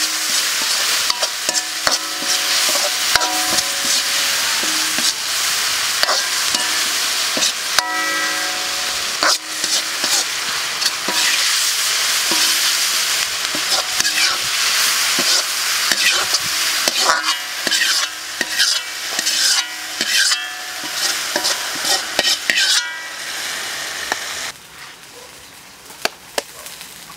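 Sliced chillies, onion and aromatics sizzling in hot oil in a metal wok, with a spatula scraping and knocking against the pan as it stirs. The sizzling stops near the end, leaving a few light knocks.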